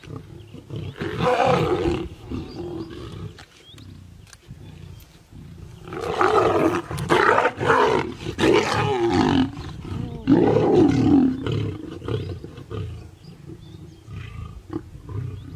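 Lions snarling and growling at a shared kill, a feeding squabble over the carcass. There are three loud bouts of sliding, rasping calls: a short one about a second in, a longer one from about six to nine seconds, and a shorter one just after.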